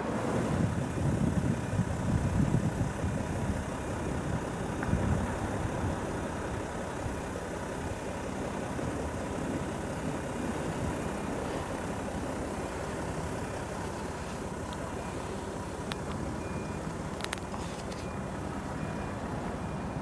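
Steady low outdoor rumble, like distant road traffic, swelling in the first five seconds and then even, with faint short high beeps repeating about once a second and a few brief clicks near the end.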